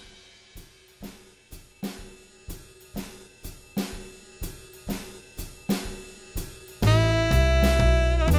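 Background jazz music: a sparse drum-kit beat of cymbal and drum hits at about two a second, then a loud full band with saxophone and bass coming in about seven seconds in.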